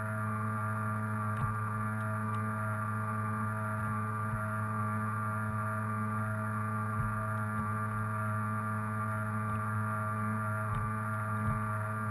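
Motor of a modified RC Atlantic tug boat running at a steady speed, a constant whine over a low hum. A few short low thumps break in.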